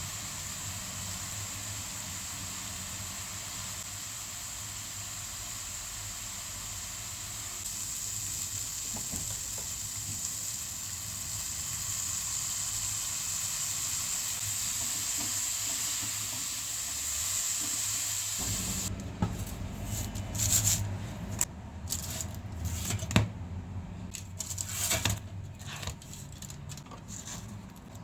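Chicken and onions sizzling steadily in a frying pan. After about eighteen seconds the sizzle cuts off suddenly, and scattered clicks and knocks follow.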